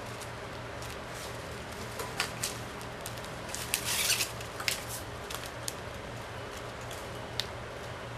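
Plastic packing straps clicking and rustling as they are threaded through a woven strap base by hand, with a short burst of scraping about four seconds in. A steady low hum runs underneath.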